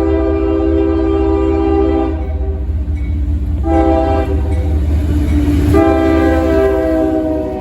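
Multi-chime locomotive air horn sounding a long blast that ends about two seconds in, a short blast near four seconds, then another long blast starting near six seconds: the long-long-short-long grade-crossing signal. A steady low rumble of the train runs underneath.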